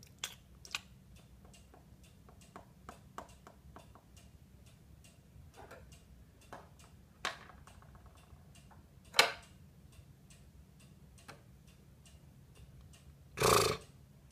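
Quiet room tone with faint, irregular small ticks and clicks, a sharper click about nine seconds in, and a brief louder noise near the end.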